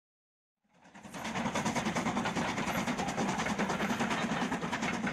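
Steam train running at speed, fading in after nearly a second of silence, with a dense, fast rhythm of beats.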